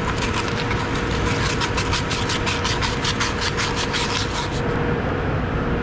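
Hand-sanding the inside bore of a pump-motor coupling flange: quick scratchy rubbing strokes, about four or five a second, that stop shortly before the end. Under it runs a steady machinery hum with a constant mid-pitched tone.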